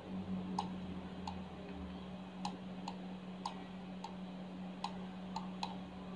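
Computer mouse button clicking about ten times at irregular intervals as border lines of a pattern piece are selected one by one, over a steady low hum.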